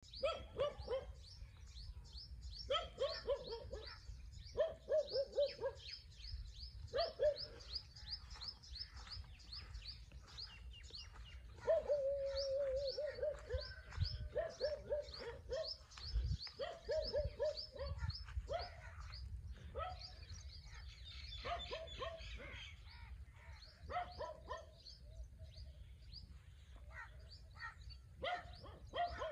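Many birds chirping and calling, with quick high twittering throughout and a lower, pulsing call that comes in short bouts about every one to two seconds.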